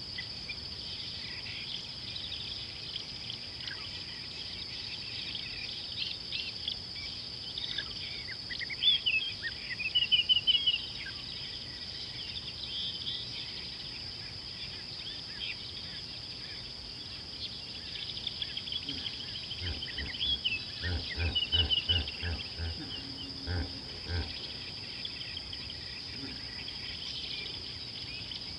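Outdoor ambience at a hippo pool: a steady high insect drone with birds calling in chirps and trills, loudest about a third of the way in. About twenty seconds in, a hippo gives a run of deep, pulsed grunts.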